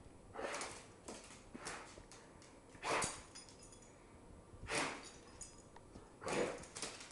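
Red Doberman pinscher 'talking' in excitement: a string of about seven short, breathy vocal grumbles and huffs, the loudest about three seconds in.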